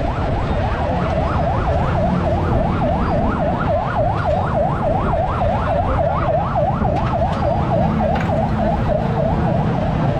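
Electronic siren sounding in a fast yelp, its pitch sweeping up and down about four times a second, over a low rumble of street noise.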